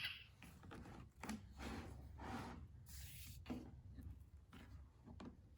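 Faint rustling and soft taps from a children's sound book being handled, a few short scuffs spread over several seconds.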